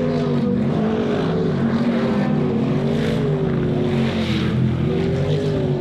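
Unlimited-class V8 jet sprint boat engines running hard at high revs, the pitch wavering up and down as the boats are throttled through the course.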